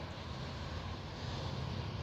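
Strong wind buffeting the microphone: a steady, uneven low rumble, with distant engine noise mixed in.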